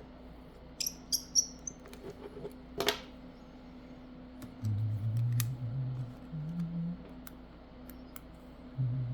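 Small sharp clicks and taps of hand tools and parts being handled during a phone teardown, a quick run of three clicks about a second in and a louder click near three seconds, with a low hum coming and going in the second half.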